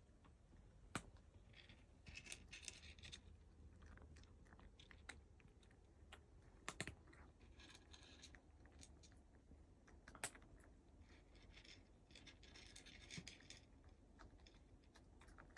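A cat faintly crunching dry kibble, in short spells of chewing with scattered sharp clicks in between.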